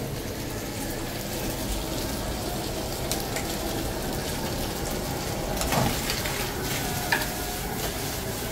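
Sliced sucuk sausage and peppers sizzling steadily in a frying pan on a gas burner, with two brief knocks in the second half.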